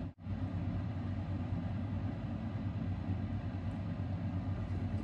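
A steady low mechanical hum with a rumble, dropping out briefly just after the start.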